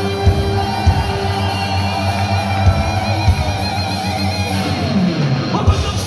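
Live heavy metal band playing loud, with distorted electric guitars, bass guitar and drums, and long guitar notes wavering in pitch.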